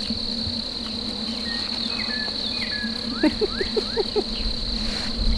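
Steady high-pitched drone of insects in a pasture at dusk. A few faint short whistled chirps come through in the middle, with a quick run of rising chirps a little past three seconds.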